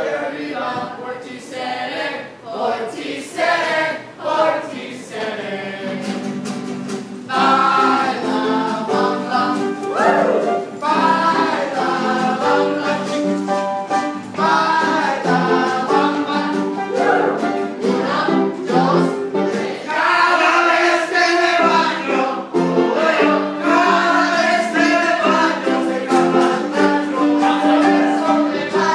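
A group of voices singing a song together, getting louder about seven seconds in as the singing fills out.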